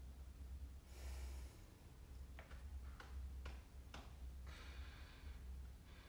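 Quiet, steady low room hum with faint breathing: an audible breath about a second in and another around five seconds, and a few soft clicks in between.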